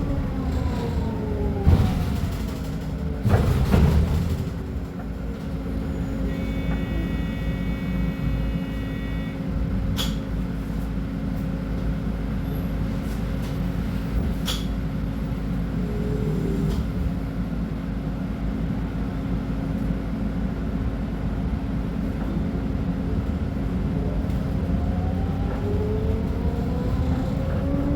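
Scania K310UB city bus with its five-cylinder diesel running: a whine falls away as the bus slows, it runs steadily through the middle, and the whine rises again near the end as it pulls away. Two loud bursts of noise come about two and three and a half seconds in, and a short electronic beep sounds around seven seconds.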